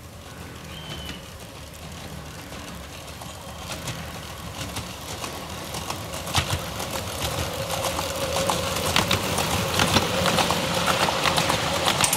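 Miniature-gauge steam locomotive and its train of passenger carriages running past, getting steadily louder as it approaches, with sharp irregular clicking and clattering of wheels on the track.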